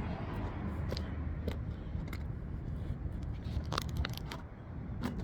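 Hand work on a truck's batteries and battery box: scattered light clicks and knocks of tools and parts being handled, about half a dozen, over a steady low rumble.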